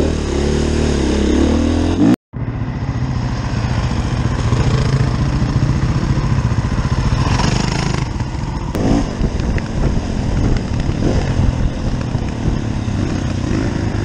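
Single-cylinder enduro dirt bike engine running on a trail ride, heard on board, with the revs rising and falling; the audio drops out completely for a moment about two seconds in, then the engine carries on at steady throttle.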